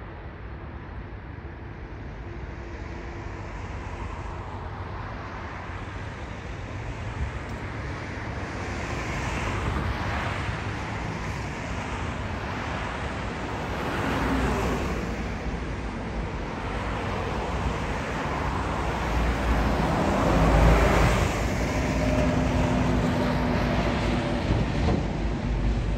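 Jet airliner engine noise that builds steadily louder as the aircraft draws closer, with a low rumble and faint steady engine tones showing in the second half, mixed with wind.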